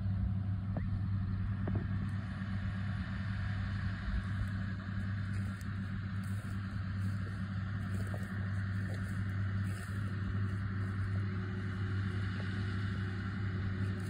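Tractor engine running at a steady low drone while pulling a New Holland ProBelt round baler, with no change in pitch.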